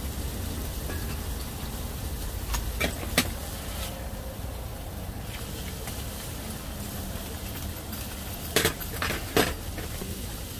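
Tableware clicking and clinking during a meal: several sharp taps of chopsticks or utensils against dishes, the loudest pair near the end, over a steady low rumble.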